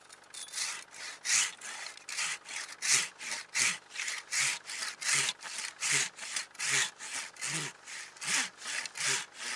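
Hand saw cutting through a wooden tree stump in steady back-and-forth strokes, about two and a half strokes a second.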